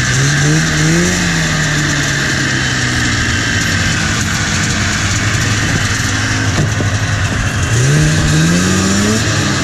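Vintage snowmobile's two-stroke engine idling, revved up briefly in the first second and again near the end, each time rising in pitch before settling back to idle.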